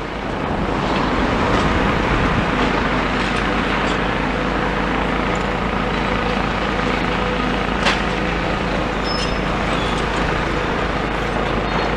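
Steady road traffic noise with a low engine hum underneath. A single sharp click about eight seconds in.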